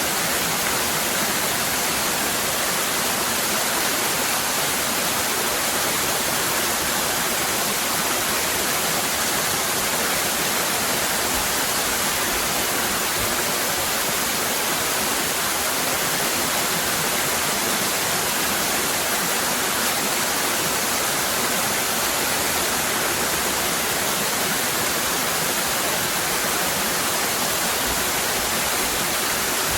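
Waterfall cascading: a steady, unbroken rush of water.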